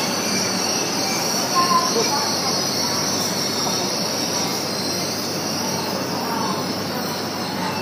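E7/W7-series Hokuriku Shinkansen train rolling slowly into the platform as it comes in to stop, a steady rushing noise of wheels on rail that slowly grows quieter toward the end.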